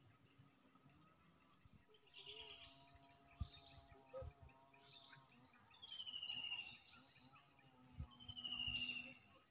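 Wild birds calling: assorted short chirps from about two seconds in, and twice a falling, trilled call, in the middle and near the end. A few faint low knocks sound in between.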